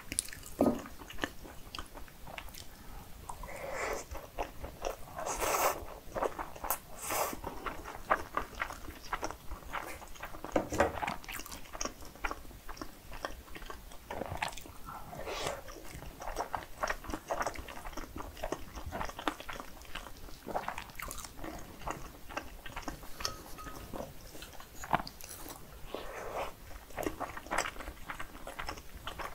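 Mouth sounds of eating cheese-topped spicy cream fried rice: chewing and biting with many small clicks throughout.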